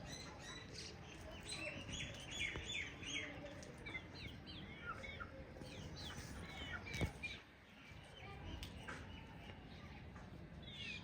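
Chickens chirping: many short, high, falling calls overlapping one another. A single sharp knock comes about seven seconds in.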